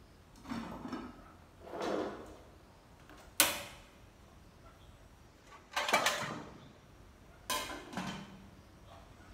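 Metal cooking pot and dishes being handled and set down at a kitchen sink and counter: about six separate knocks and clanks, the sharpest about three and a half seconds in and about six seconds in, the latter ringing briefly.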